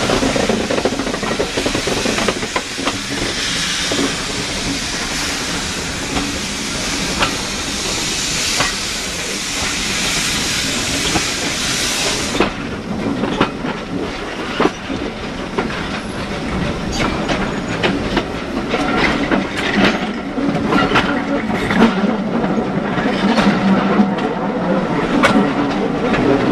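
Steam-hauled train heard from a coach window as it runs along. Steam hisses loudly and cuts off suddenly about halfway through, leaving the wheels clicking over the rail joints.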